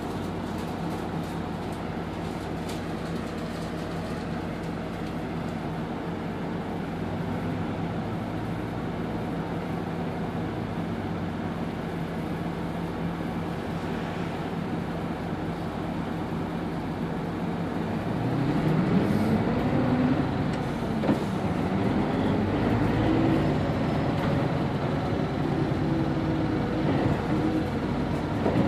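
Hino BJG-HU8JLFP hybrid city bus running steadily at low load, then, about two-thirds of the way through, growing louder as the engine note climbs, dips and climbs again while the bus accelerates.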